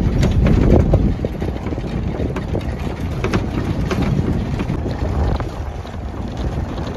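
Car driving along a dirt road, heard from inside with the window open: a steady low rumble of tyres on the gravel surface and wind buffeting the microphone, with scattered light ticks.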